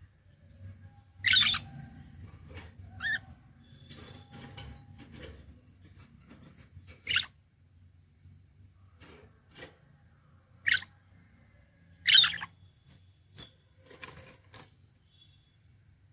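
Pet budgerigars giving short, sharp chirps and squawks: about five loud calls spaced a few seconds apart, with fainter chirps and clicks between them.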